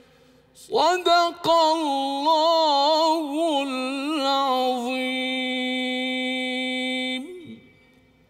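A man's voice chanting Quran recitation in melodic tajweed style. After a short pause comes a single long phrase with ornamented, wavering pitch. It settles into a long held note, then stops.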